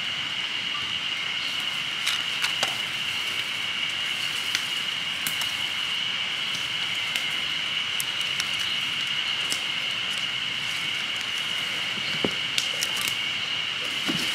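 Wood campfire crackling and popping with irregular sharp snaps, over a steady high-pitched insect chorus.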